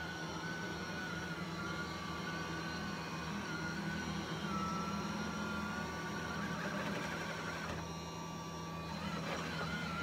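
LG Hom-Bot Square robot vacuum running on carpet: a steady motor hum under a wavering high whine. The whine drops out for about a second near the end, then comes back.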